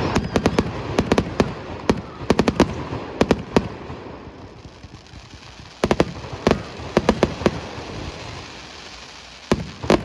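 Aerial fireworks shells bursting in quick volleys of sharp bangs, with a rumbling echo between the volleys. A dense run of bangs comes in the first three or four seconds, another cluster around six to seven seconds, and a few more near the end.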